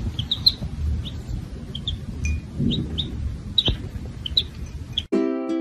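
Baby chicks peeping: a run of short, high peeps, a couple a second, over a low rumble. Near the end the peeping cuts off and ukulele music starts.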